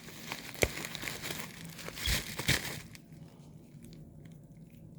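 Packaging crinkling and rustling as items are handled and pulled out of a box, with a few sharp clicks; it dies down after about three seconds.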